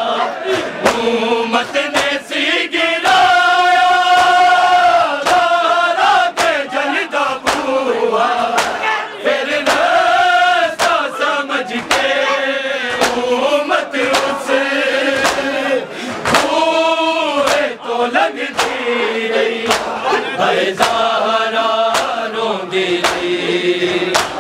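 A group of men chanting a Punjabi noha (mourning lament) in unison, holding long wailing notes, over a steady beat of sharp slaps from hands striking chests in matam.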